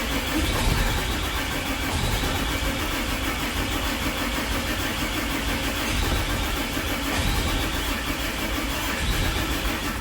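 6.7 Cummins turbo-diesel turned over by its starter, cranking steadily without firing, and the cranking stops near the end. The engine gets fuel but won't start, which the owner puts down to injection timing set too far retarded for its oversized injectors.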